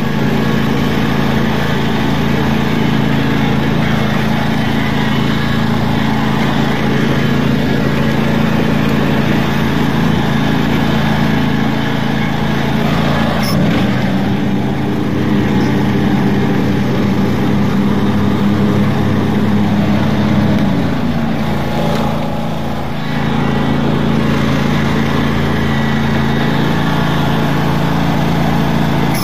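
Riding lawn mower's small engine running steadily under way. Its note sags briefly about halfway through, and the level dips for a moment about three-quarters of the way in.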